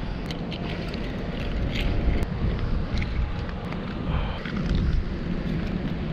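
Wind buffeting the microphone in a steady low rumble, with scattered small clicks and rattles from a plastic-cased measuring tape being pulled out and handled.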